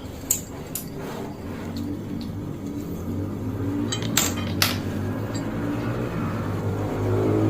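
Cutlery clinking against a plate or bowl of noodles, a few sharp clicks, two near the start and two more about four seconds in. A low rumble grows louder underneath.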